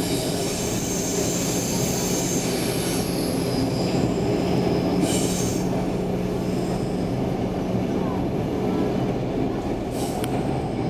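Inside a Stockholm C15 metro car running through a tunnel: a steady rumble of wheels on rail under a constant low hum. Thin, high-pitched wheel squeal comes in during the first few seconds, there is a short hiss about five seconds in, and a sharp click near the end.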